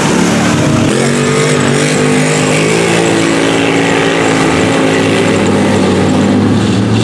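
Quad bike (ATV) engine revving hard as it churns through deep mud, its pitch rising and falling.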